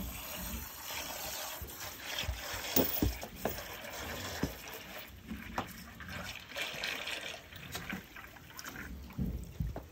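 Water trickling and splashing into a bucket, with a few scattered knocks and thumps.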